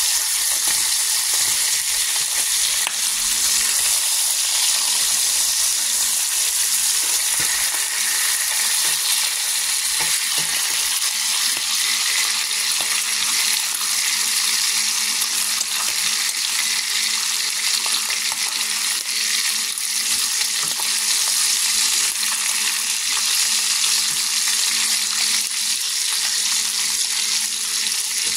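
Bacon sizzling steadily as it fries in a cast iron skillet, the hiss mostly high, with faint pops and crackles of spitting fat.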